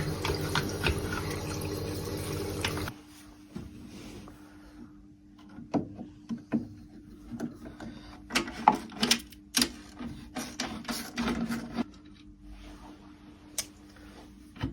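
Gas combi boiler running with a steady rushing hum, which cuts off abruptly about three seconds in. Then a faint hum with a series of clicks and knocks as the boiler's front casing is worked off.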